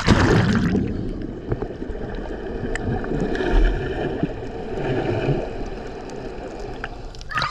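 A loud splash at the very start, then sea water sloshing and gurgling.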